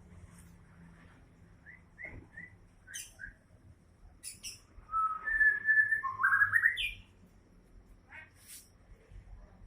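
White-rumped shama (murai batu) singing: scattered short whistled notes and sharp high chips, with a louder phrase of clear whistles ending in a rising sweep in the middle.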